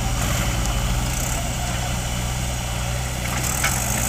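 Diesel engines running steadily with a low, pulsing throb: a JCB 3DX backhoe loader working its backhoe arm and a Mahindra 595 DI tractor close by.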